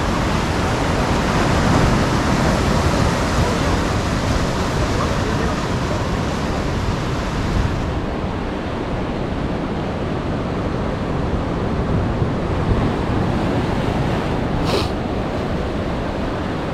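Ocean surf washing and breaking against the rocks of a jetty, a steady rushing noise with some wind on the microphone. A single short high click comes near the end.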